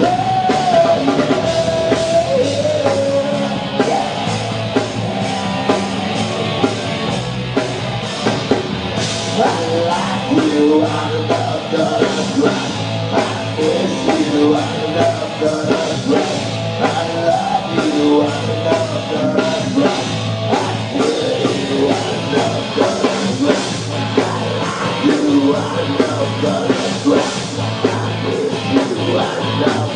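A live rock band playing a song: drum kit keeping a steady beat under bass, with a singer's voice over it.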